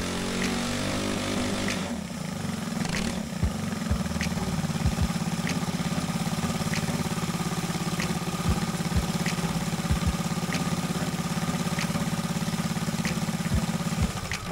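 Briggs & Stratton LO206 single-cylinder four-stroke kart engine on a dyno, its revs falling over the first couple of seconds as it comes off a dyno pull, then running steadily at low speed.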